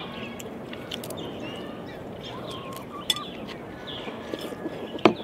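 Small birds giving short, scattered chirps over steady outdoor background noise, with a sharp knock about five seconds in.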